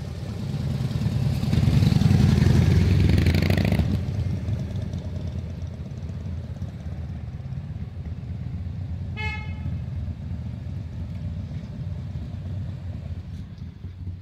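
A motor vehicle passes close by: a loud low engine rumble that swells, peaks about two seconds in and fades by four seconds. A short horn toot comes about nine seconds in, over a steady low traffic rumble.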